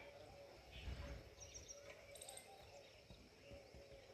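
Near silence: faint outdoor ambience with a few brief, high chirps about one and a half and two seconds in.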